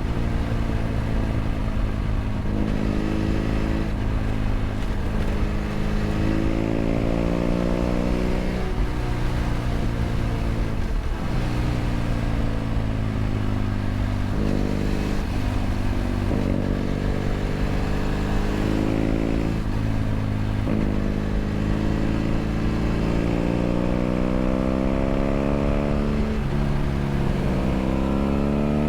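BMW F800 GS parallel-twin engine through a LeoVince LV ONE EVO stainless exhaust, heard from the bike, pulling through the gears: the pitch climbs and then drops at each shift, repeated many times, with another rise near the end.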